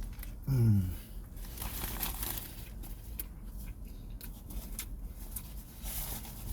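Burger wrapper paper crinkling and tearing as the food is unwrapped and handled. A short low falling "mm" from the eater comes about half a second in.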